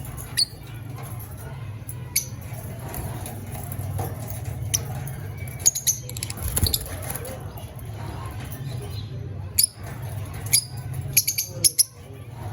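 Fischer's lovebirds giving short, sharp, high-pitched chirps and squeaks at irregular intervals, several quick ones in a cluster near the end, over a steady low hum.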